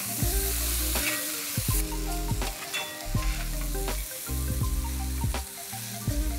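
Chicken pieces sizzling as they brown in hot mustard oil and ghee, stirred with a spatula that scrapes and knocks against the pan again and again. Soft background music runs underneath.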